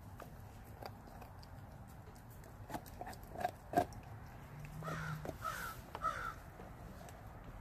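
A dog gnawing and crunching a raw beef rib, with scattered sharp cracks, the loudest two about three and a half seconds in. Near the end, three short calls sound in the background.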